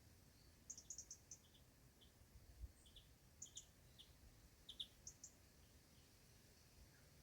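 Faint chirping of small birds: short, high chirps in twos and threes every second or so, over a faint low rumble.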